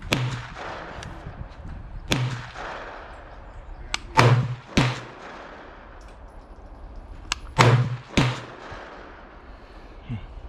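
Gunshots fired at irregular intervals, about six loud reports with echoing tails, some coming in pairs about half a second apart, with fainter shots between.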